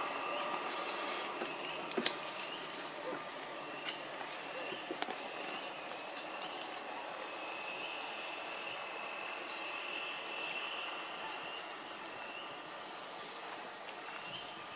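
Steady insect chorus: a high, continuous drone with a second wavering trill beneath it. A few faint sharp clicks sound about two and four seconds in.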